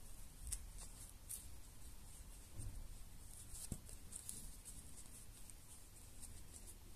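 Faint scratching and light clicks of a crochet hook and yarn being worked through the edge of a felt slipper sole, with one soft knock about three and a half seconds in.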